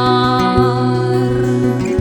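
Instrumental music: sustained chords over a low bass line, the bass note changing about half a second in and again near the end.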